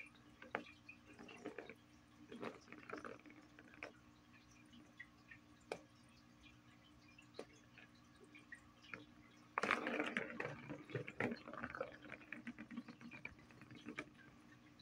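Cat pawing at a plastic ball-in-track toy with a cardboard scratch pad: scattered light clicks and taps. About two-thirds of the way through comes a louder stretch of scuffling and rattling that lasts about two seconds.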